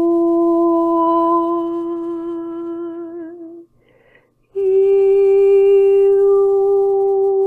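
A woman's voice toning in a light-language transmission: a long held hum that wavers near its end and stops about three and a half seconds in, a brief pause, then a slightly higher held note.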